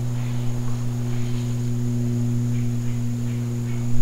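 A steady low hum with overtones and a faint, steady high whine over it, with a few faint short calls in the background.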